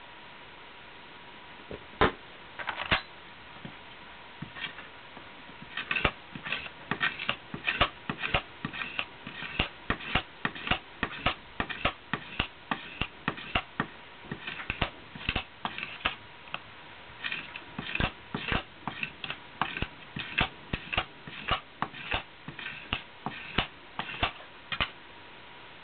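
Hand work on a small workpiece: two sharp knocks about two seconds in, then from about six seconds an irregular run of short clicks and scrapes, two or three a second. A faint steady high tone sits underneath.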